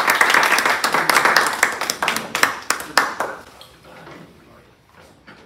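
A small audience applauding, the clapping thinning and dying away about three seconds in, with a few last scattered claps after.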